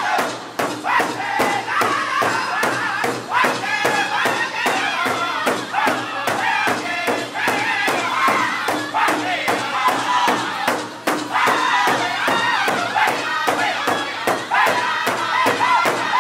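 Powwow drum group singing together in high, strained voices over a large shared hand drum struck in unison with drumsticks in a fast, steady beat.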